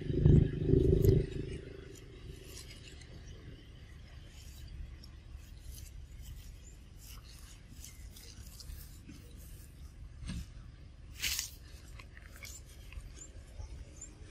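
Outdoor ambience: a low rumble in the first second and a half, then faint background noise with scattered light rustles and clicks, one sharper click about eleven seconds in.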